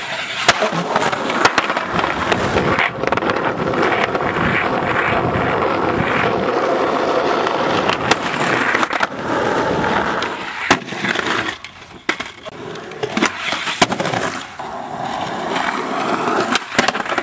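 Skateboard wheels rolling over concrete, with sharp clacks of the board hitting the ground scattered throughout. The rolling drops away briefly a little past the middle, then picks up again.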